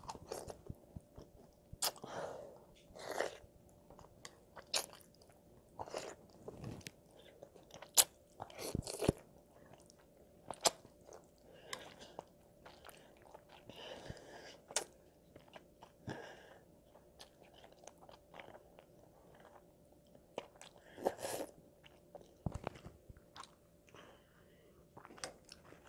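A child eating jjajangmyeon (black bean noodles) close to the microphone: irregular slurps of noodles and chewing, broken by sharp clicks, with a faint steady hum underneath.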